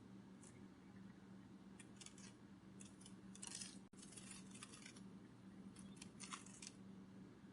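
Faint butterfly wing-flutter sound effect: short, soft rustling flutters in small clusters every second or so, over a low steady hum.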